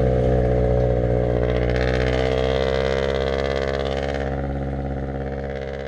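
Vehicle engine running steadily at an even pitch, heard on board during a ride, gradually fading out toward the end.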